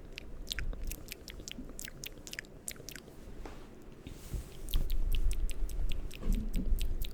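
Stuck plastic lid of a lotion container being twisted and forced, with many sharp clicks and crackles; from about four seconds in, louder low rumbling handling close to the microphone as it gives way.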